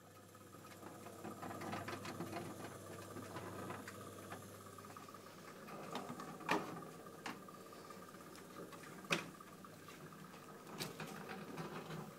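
Jupiter J80 jukebox mechanism running: a motor whirring with a steady hum, with mechanical clicks and clunks, several sharper ones in the second half.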